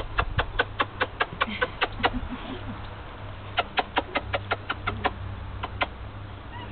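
A bird calling in a rapid run of short clucking notes, about five a second; it breaks off about two seconds in, starts again a second and a half later, and ends with two last notes near the end.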